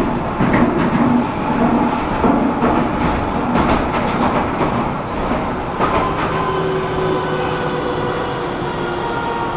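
Metro train running between stations, heard from inside the carriage: a loud steady rumble of wheels on rail with scattered knocks, joined about six seconds in by a steady whine of several tones.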